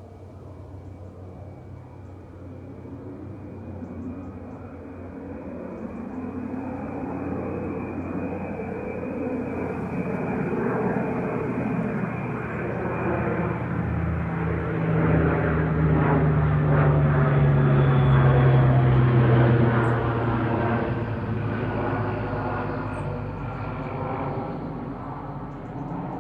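Small propeller plane flying by overhead: its engine drone grows steadily louder, peaks about three-quarters of the way through, then fades, the engine note dropping in pitch as it passes.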